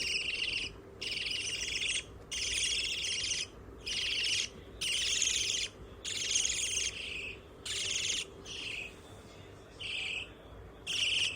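Pet budgerigars chirping in rapid trilled bursts of about a second each, repeating about once a second, with shorter single chirps in the second half.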